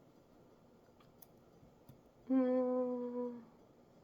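A man humming one steady, closed-mouth 'hmm' lasting about a second, a little past the middle. A few faint clicks come before it.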